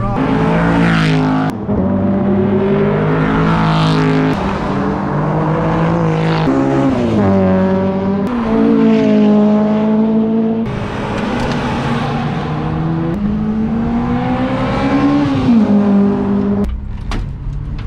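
Track-day cars, among them a Honda Civic and a BMW E46, passing at speed with their engines running at high revs. The engine pitch steps and climbs, then drops as each car goes by.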